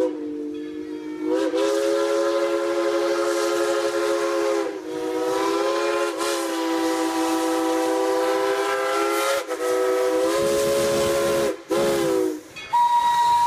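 Steam locomotive's chime whistle sounding a long series of blasts, several notes at once in a chord, with short breaks between, stopping a second or so before the end.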